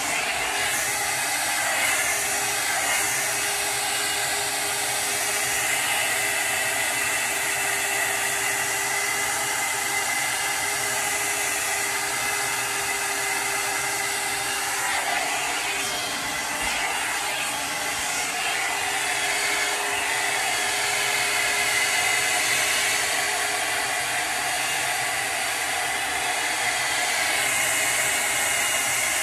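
Steady rushing noise of air blown by a small electric motor, running without a break and carrying a faint steady hum.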